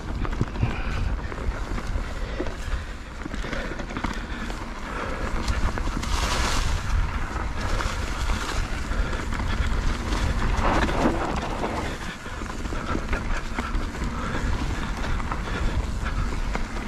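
Wind buffeting the microphone while a mountain bike rides over a rough trail, with a steady rumble and a constant patter of small clicks and rattles from the bike, and a couple of brief louder swells along the way.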